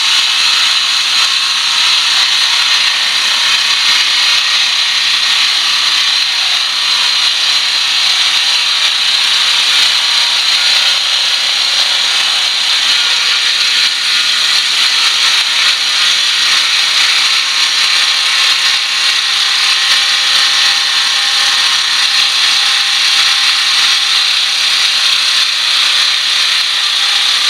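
Electric saber saw (jigsaw) with a metal-cutting blade cutting through sheet metal, running loud and steady throughout.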